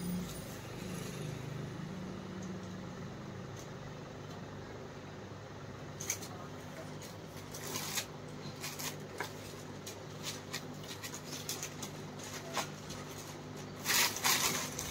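Cloth and plastic packaging rustling and crinkling as suits are handled and unfolded: scattered short rustles from about six seconds in, loudest just before the end, over a steady low hum.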